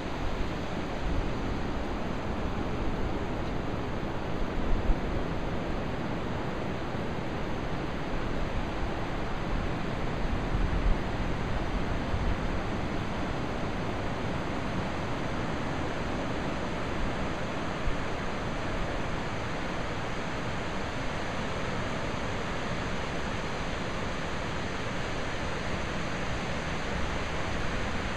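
Steady rushing noise of Pacific surf and wind on the microphone, with a low rumble underneath.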